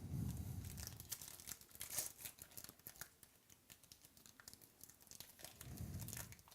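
Foil wrapper of a trading card pack crinkling and tearing as it is opened, with a run of sharp crackles.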